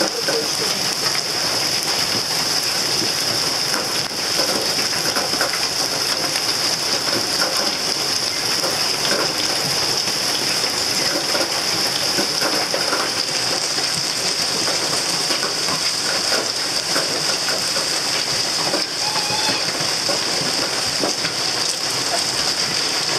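Hailstorm: hail and heavy rain pelting down in a dense, steady patter of many small impacts.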